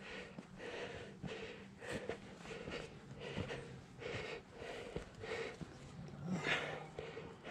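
A hiker breathing hard close to the microphone while climbing, with quick breaths in an even rhythm of about two a second.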